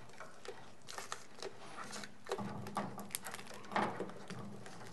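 Faint scattered clicks, taps and crinkling from hands working on the parts of an opened avionics unit: a small wired plug being worked loose and a foil-taped housing being handled.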